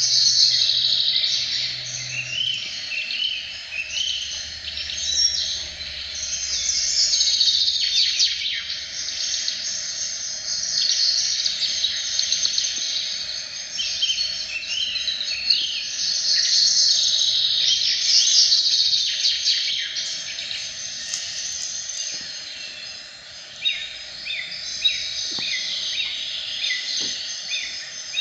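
Many birds chirping together: a dense, continuous chorus of short high chirps, with a faint steady drone beneath.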